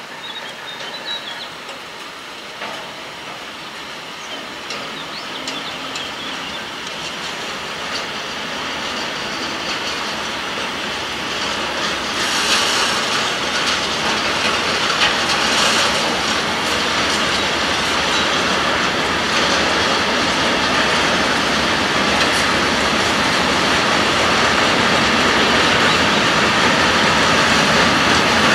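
Freight train of container flat wagons rolling past, a steady noise of steel wheels running on the rails that grows gradually louder.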